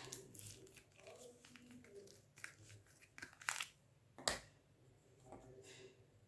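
Soap bar's paper and plastic wrapping being unwrapped by hand: scattered crinkling and tearing, with two sharp snaps of the wrapper about three and a half and four and a quarter seconds in.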